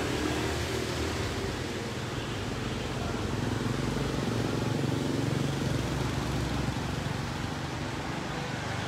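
Steady background hiss and hum, with a faint low engine-like drone that swells and fades about midway.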